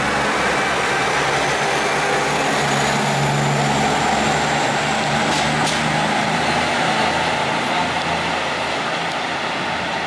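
KiHa 85 series diesel railcar's Cummins diesel engines under power as the train pulls out of the station. There is a steady low engine drone with a faint whine rising in pitch as it gathers speed, two sharp clicks of the wheels a little past the middle, and the sound eases off slightly near the end as it draws away.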